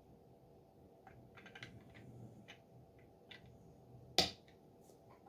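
Plastic LEGO pieces being handled and pressed together: a run of small clicks, then one sharp snap a little after four seconds in.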